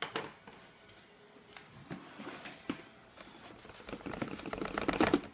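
Dry rolled oats, mealworm bedding, poured and shifted in a plastic storage bin: a rustling, rattling patter of flakes on plastic that grows denser and louder over the last two seconds. A knock of the plastic bin being handled comes right at the start.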